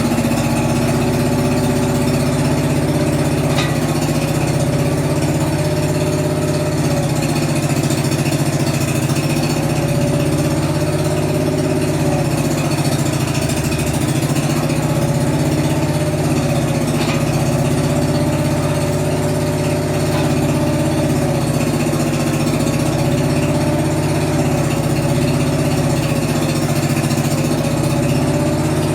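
Engine of a homemade mini backhoe running steadily, its pitch wavering slightly every few seconds.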